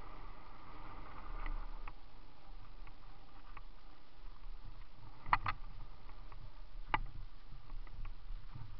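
Bicycle rolling down a rough forest trail: a steady rumble and hiss, with the bike's parts knocking over bumps, a sharp double clack a little past halfway and another single clack about two seconds later.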